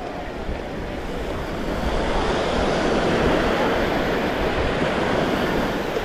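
Small waves breaking and washing up the sand at the water's edge, the surf noise swelling about two seconds in and then holding, with wind rumbling on the microphone underneath.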